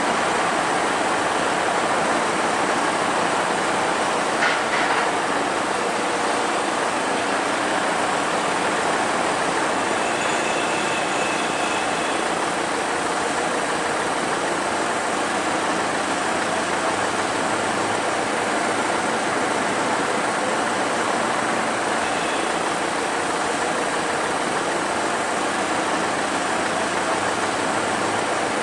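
Truck crane's diesel engine running steadily at a constant speed while the crane works, with a single short knock about four and a half seconds in and a faint high whine around ten seconds in.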